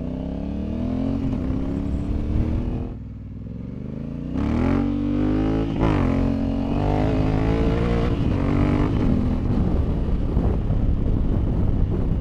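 Honda Africa Twin 1100's parallel-twin engine accelerating, its pitch rising through the revs. It backs off about three seconds in, then pulls hard again, with the pitch stepping down and climbing at several gear changes.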